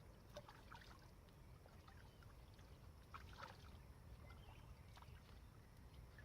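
Near silence: a faint steady low rumble with a few small scattered clicks.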